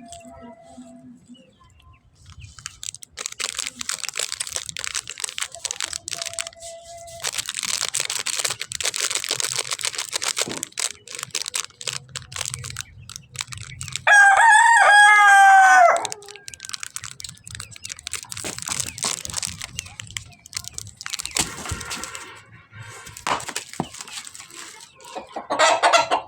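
A rooster crowing once, loud and wavering for about two seconds, around the middle. Around it runs a rustling, crackling noise.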